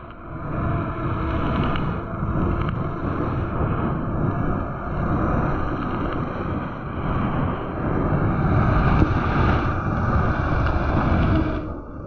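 Wind buffeting the microphone while a mountain bike rolls fast along an asphalt lane, with tyre rumble underneath. The noise swells and gusts, loudest toward the end, and its higher part drops away suddenly just before the end.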